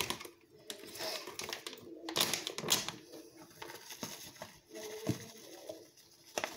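A packet of grated Parmesan handled and shaken out over a plastic mixing bowl: irregular crinkling rustles and light clicks, loudest about two seconds in.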